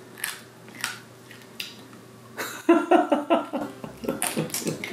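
Dry spaghetti-stick bristles of an edible hairbrush crunching and snapping between the teeth: a few sharp crisp bites in the first couple of seconds. A person's vocal sounds follow from about halfway.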